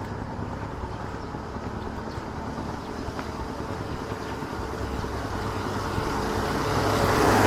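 A motor vehicle's engine running steadily, then growing louder over the last couple of seconds as it approaches and passes close by near the end.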